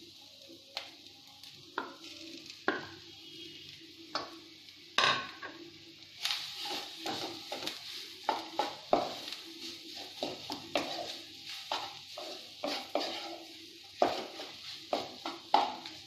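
A wooden spatula knocks mashed boiled potato off a bowl into a hot non-stick kadhai, then stirs and mashes it into frying onions with many sharp taps and scrapes on the pan. Sizzling frying grows louder after the first few seconds.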